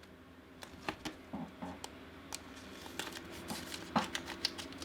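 Soft handling noise and scattered small clicks of a paper sticker being slid into a plastic card sleeve.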